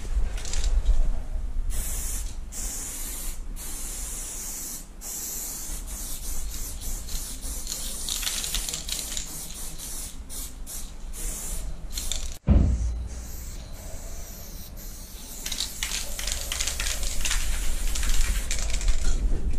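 Aerosol spray-paint can hissing in repeated bursts of varying length, stopping and starting as a graffiti fill is sprayed onto a wall, with a sudden break about twelve seconds in.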